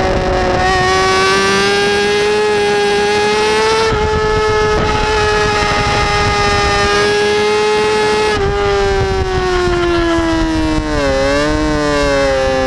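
Kawasaki ZX-6R's inline-four engine running hard at high revs under way, its pitch holding and slowly rising, then falling steadily from about two thirds in as the throttle comes off, with a brief dip and recovery in pitch near the end. Wind rush on the camera runs underneath.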